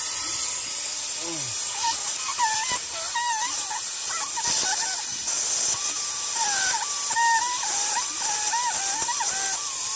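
Pressurised water hissing steadily out of a ruptured PVC pool pipe at a threaded fitting, a bad leak. From about two seconds in, a wavering, warbling whistle comes and goes over the hiss.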